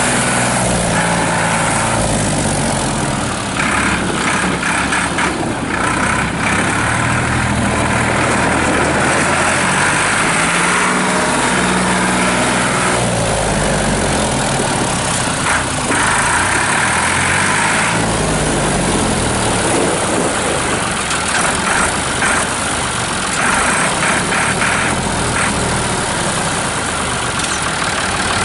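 1999 New Holland 3430 tractor's three-cylinder diesel engine running, its pitch rising and falling several times as engine speed changes.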